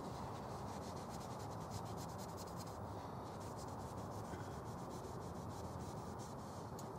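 Kitchen towel damp with WD-40 rubbing along a knife blade as it is wiped over: soft, repeated rubbing strokes over a steady background hiss.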